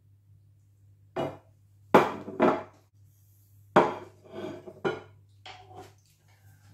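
Crockery and serving utensils clattering: ceramic plates are set down on a kitchen worktop and a ladle knocks against the slow cooker's pot. There are about ten sharp knocks over a few seconds, the loudest about two and four seconds in, over a faint low hum.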